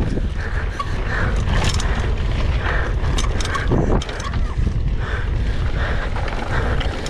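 Heavy wind buffeting the microphone over constant clattering and rattling, typical of a camera on a mountain bike ridden fast down a rough downhill trail. There is a brief break about four seconds in.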